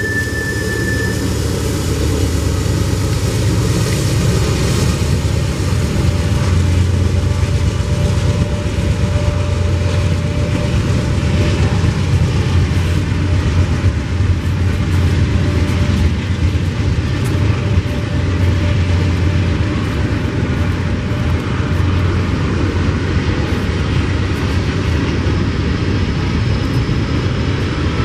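Norfolk Southern double-stack container train rolling past close by: a steady, loud low rumble of the diesel locomotives and the wheels of the container cars on the rails.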